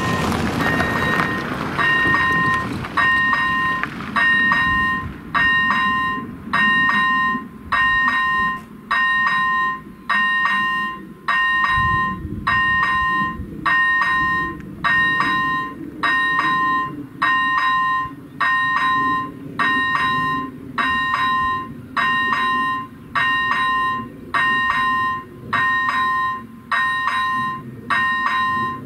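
AŽD ZV-01 electric level-crossing bell ringing its warning, a ringing two-pitch tone repeated about once a second. It signals that a train is approaching and that the barriers are about to come down.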